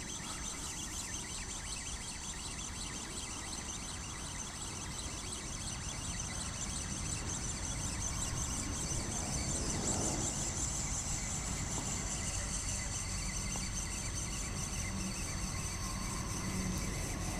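Spinning reel being wound steadily as a hooked fish is brought in on a bent rod, a fast fine whirr of the reel's gearing over a steady low rumble.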